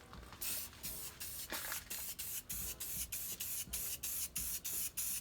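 Spray paint being sprayed in short, quick bursts, about four a second, each a brief hiss, as the first coat of metallic blue paint goes on.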